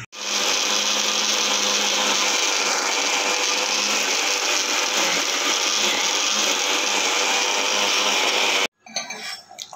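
Electric mixer grinder with a steel jar running steadily at speed. It cuts off abruptly near the end.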